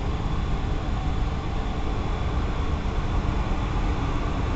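Steady drone and rushing noise of boiler-room plant running, with heating boilers and pumps in operation, its energy mostly in the low range, and a few faint steady hum tones over it.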